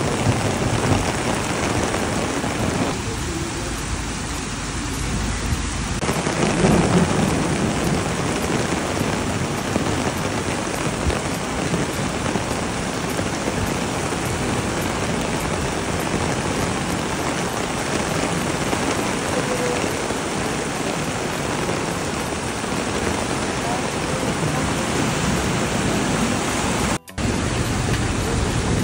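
Heavy rain pouring steadily onto a flooded street, a dense hiss of rain and running floodwater, briefly swelling louder about six seconds in.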